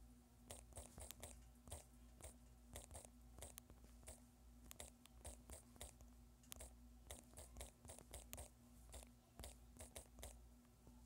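Quiet, irregular taps of typing on a smartphone's touchscreen keyboard, a few taps a second with short pauses between words, over a faint steady hum.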